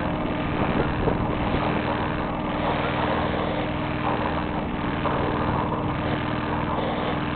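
Sailboat's auxiliary engine running at a steady speed under way, with a haze of wind and water noise and a few light knocks about a second in.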